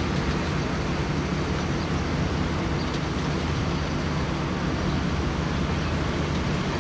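Steady low drone of a pusher boat's diesel engine, under an even rushing noise.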